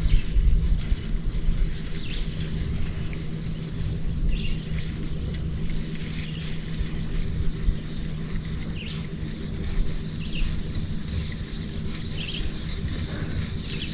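Wind rumbling on the microphone over a steady low hum, with faint, scattered bird chirps.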